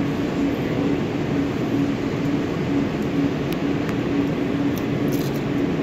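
Steady mechanical hum and rushing noise with a low tone that pulses on and off, from running machinery or ventilation.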